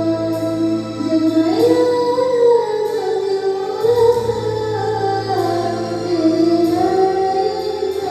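Sholawat, Islamic devotional song: a singer holding long, gliding melodic lines over instrumental accompaniment with a steady low drone.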